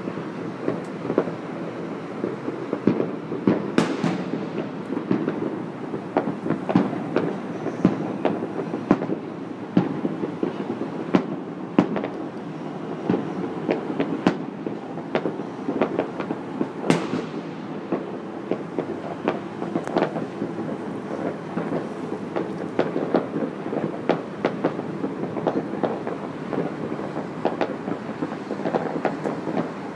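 Many fireworks and firecrackers going off at once in the distance: a dense, continuous crackle of pops and bangs, with a couple of louder bursts standing out.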